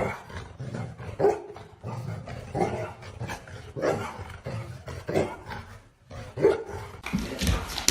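A dog barking and growling in a run of short, separate calls.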